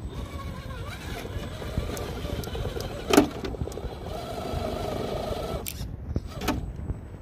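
FTX Hi-Rock 1/10-scale RC crawler's electric motor and gears whining as it crawls over rock, with a sharp knock about three seconds in. The whine steadies for a second or so and cuts off near six seconds, followed by a few clicks.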